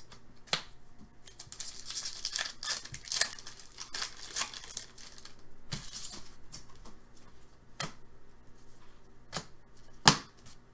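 Wrapper of a pack of hockey trading cards being torn open and crinkled for a few seconds, followed by the cards being handled, with several sharp snaps and taps, the loudest near the end.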